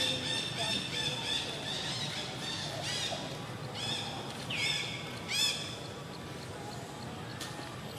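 High-pitched animal calls: a thin, sustained whine through the first couple of seconds, then four short squeals that rise and fall between about three and five and a half seconds in, the last one the loudest. Faint rapid ticking follows.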